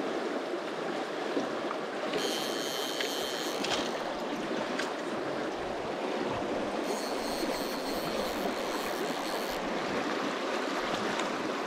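Fast riffled stream rushing steadily over stones. A faint high hiss comes and goes twice, about two seconds in and again around seven seconds in.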